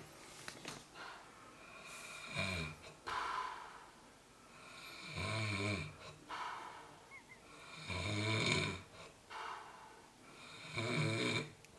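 A person snoring in a steady rhythm: four low buzzing snores, one about every three seconds.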